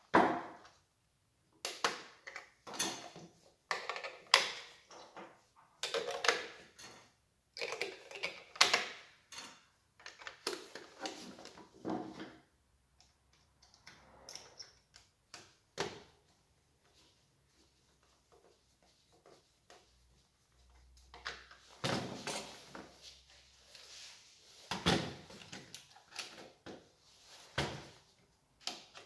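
Irregular knocks, clicks and scrapes of a plastic toy Husqvarna 550XP Mark II chainsaw being handled on a wooden workbench while a screwdriver turns a screw in its housing. The noises thin out in the middle for several seconds, then pick up again.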